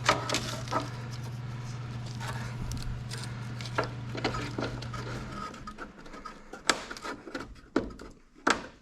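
Hands handling a plastic parking-sensor wiring harness and bumper parts: rubbing, scattered clicks and a few sharp knocks, sharper near the end. A steady low hum runs underneath and stops about five seconds in.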